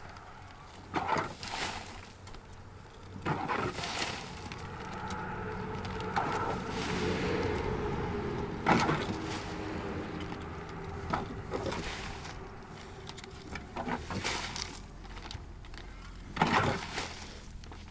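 Shovel scraping into a pile of soil and dumping it into a wooden cart box, repeated every few seconds. A steady droning hum swells in the middle and fades.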